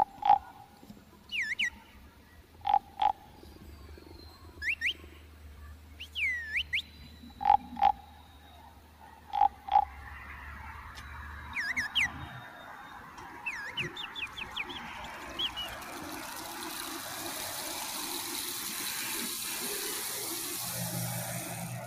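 Frogs croaking in short double notes every couple of seconds, with sharp descending bird chirps over them. A steady hiss builds in the last few seconds.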